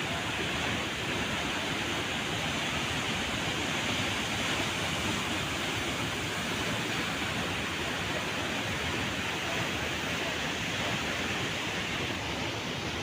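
Waterfall pouring: a steady rush of falling water.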